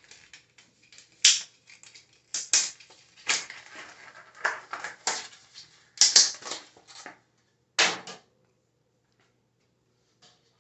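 A printed paper label being pulled, torn and crumpled off a new fishing rod: irregular crackling and rustling with several sharper rips, stopping about eight seconds in.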